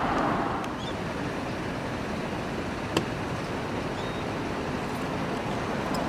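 Steady outdoor background noise, an even wash with no distinct events, broken by one sharp click about three seconds in.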